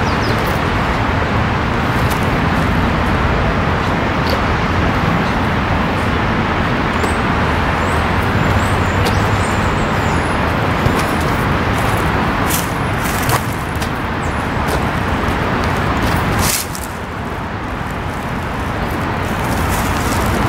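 Steady, loud outdoor rumble of road traffic, with a few sharp knocks; the noise drops suddenly about three-quarters of the way through.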